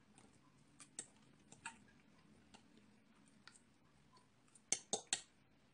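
A metal fork clicking and clinking against a ceramic plate while pancakes are cut. Light scattered clicks come about once a second, then three sharper clinks in quick succession near the end.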